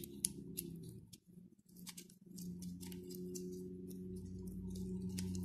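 Aspirin tablets being pressed out of a foil blister pack: irregular crackling and sharp clicks of the foil and tablets. A steady low hum runs underneath, a little stronger from about two seconds in.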